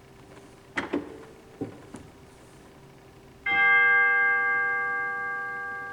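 A few short mechanical clicks from the organ console, then about three and a half seconds in a single chime note from the organ's chime stop, struck once and left ringing as it slowly fades.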